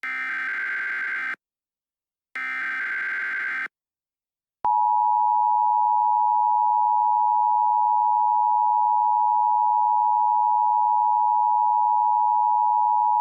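Emergency Alert System tones. The last two of the three SAME header data bursts are harsh digital screeches of about a second and a half each, a second apart. After a short gap, the steady two-tone EAS attention signal starts about four and a half seconds in and holds.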